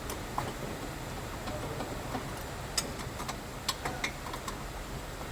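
Several light clicks and taps at irregular intervals, the loudest about three seconds in and a cluster of them soon after, from hand tools and car parts being handled during wheel hub reassembly, over a low steady background noise.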